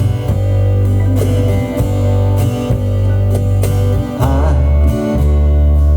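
A band playing a song, with guitar over a strong, steady bass.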